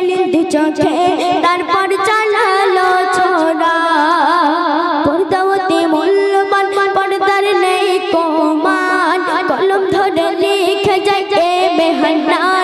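A young singer's solo voice singing a Bangla gojol (Islamic devotional song) through a handheld microphone, in long held notes with a wavering, ornamented pitch.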